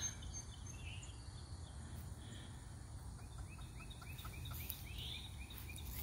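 Faint outdoor background noise with a low rumble, and from about two seconds in a quick run of faint, short chirps, about three a second.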